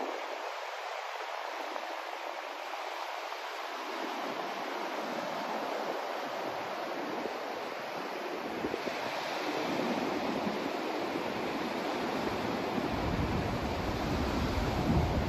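Continuous rushing white noise from a sleep-sound track, with no tones or clicks. Its deep low end is missing at first, gradually fills in, and swells fuller toward the end.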